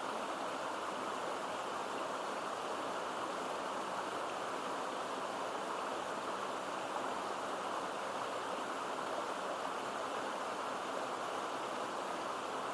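Stream water rushing and babbling steadily, one even wash of sound that neither rises nor falls.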